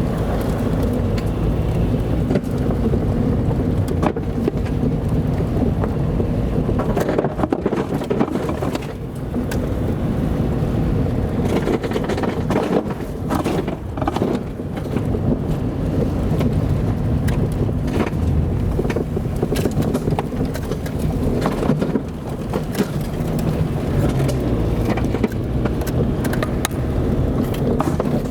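Car driving on a rough dirt road: a steady engine and tyre rumble with frequent short knocks and clatter throughout.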